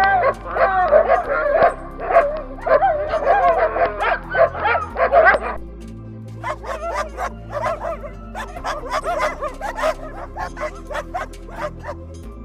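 Dogs yipping and whining in high, wavering calls for about five seconds, then a run of short, sharp barks and yelps, over steady background music.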